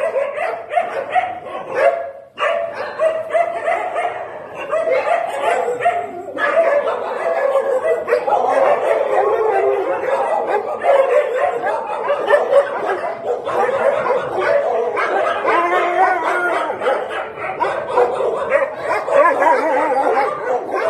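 A pack of kennelled shelter dogs barking together, many overlapping barks in a dense, unbroken din, dropping out only briefly about two seconds in.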